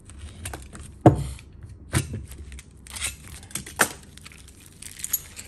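Small metal weight plates for a weighted training vest being handled, clinking and knocking together about four times, roughly a second apart, with rustling in between.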